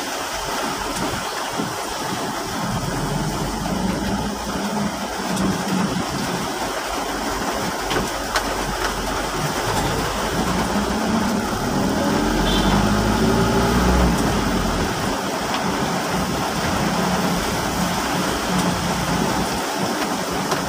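Heavy rain falling, a steady hiss, with a vehicle engine running underneath; around ten to fourteen seconds in the engine's pitch rises as it speeds up.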